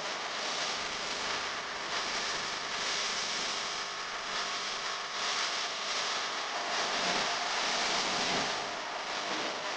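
A sheet of paper rustling and creasing as it is handled and folded, in uneven swells of crackly rustle.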